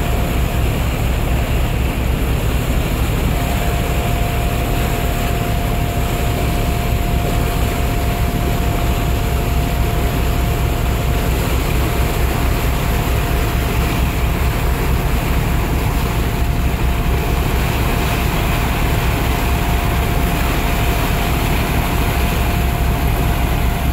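A boat's engine runs steadily under way as a constant drone, and a thin steady whine joins it a few seconds in. Wind buffets the microphone throughout.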